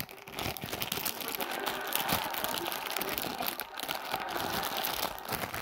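Plastic wrapping crinkling and crackling as hands work at it, an irregular run of many small sharp crackles.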